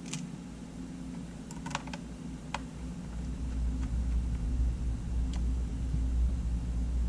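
A few scattered small clicks and taps, like small metal parts and a screwdriver being handled during the camera's repair, over a steady low hum.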